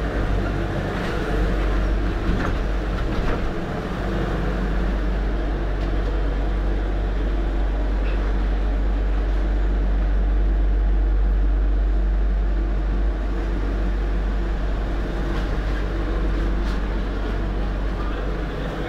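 A long train rolling past, a steady unbroken rumble of wheels on rails that swells a little in the middle.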